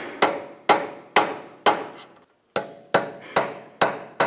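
Hammer striking a punch against the edge of a new axle nut, about nine sharp, ringing metal-on-metal strikes at roughly two a second, with a short pause a little past halfway. The nut's collar is being peened over to lock it on the axle.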